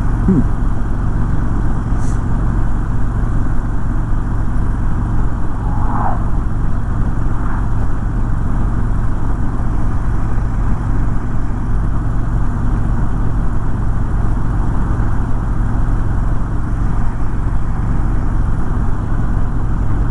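Harley-Davidson Electra Glide Ultra Limited V-twin engine running steadily at highway cruising speed, its low rumble mixed with steady wind rush on the rider's microphone.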